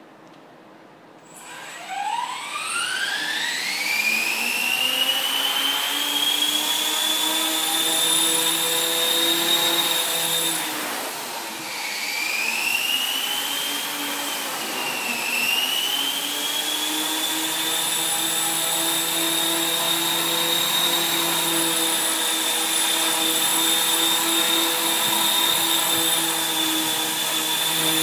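Dynam E-Razor 450 electric RC helicopter spooling up from stopped about two seconds in, its motor and rotor whine rising to a steady high pitch. Around eleven seconds the pitch drops, wavers up and down, then climbs back and holds steady.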